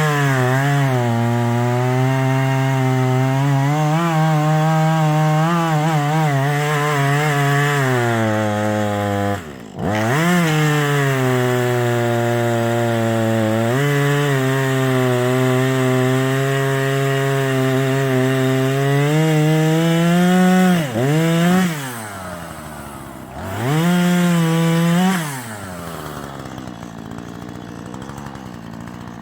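Husqvarna 440e two-stroke chainsaw running at full throttle through wood, its pitch wavering under load. The throttle is let off briefly about ten seconds in, and twice more about three quarters of the way in, before one more rev and a drop to a quieter idle near the end.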